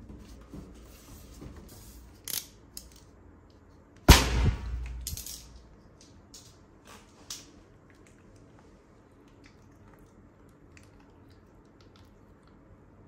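A large rubber balloon, coated in foam and inflated by an electric balloon pump, bursts with one loud bang about four seconds in, followed by a brief wet splatter as the foam sprays out. Before the bang come a few light squeaks and taps of hands on the stretched rubber, and after it a few faint wet clicks.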